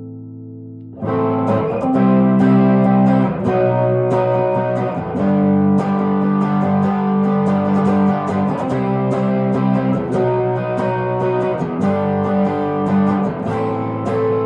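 1968 Gibson SG Junior electric guitar through its single P-90 pickup. A chord rings out and fades, then about a second in the guitar comes back louder, playing a run of chords that each ring for a second or two.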